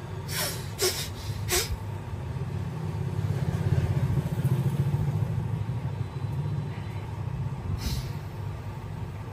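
Low rumble of road traffic that swells in the middle, as if a vehicle is passing. Three sharp smacks come in quick succession in the first two seconds, and another comes near the end.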